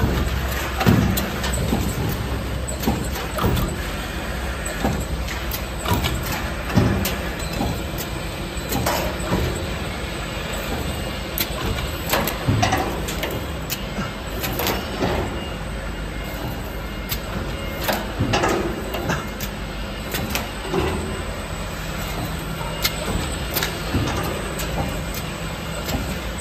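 CNC swing shear line for transformer core steel running: a steady low machine hum with irregular sharp knocks every second or two.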